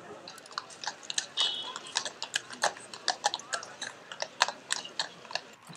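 Shod horses' hooves clopping on a paved street at a walk: irregular sharp clicks, several a second.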